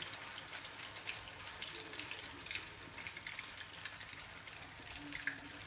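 Slice of buttered bread frying in shallow vegetable oil in a pan: a steady sizzle dotted with many small, irregular pops and crackles.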